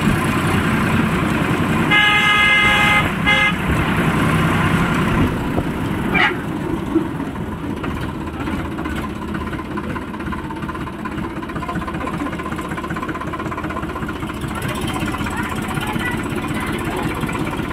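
Sonalika tractor's diesel engine running steadily under way, heard from the driver's seat. A horn sounds twice about two seconds in, a long blast and then a short one.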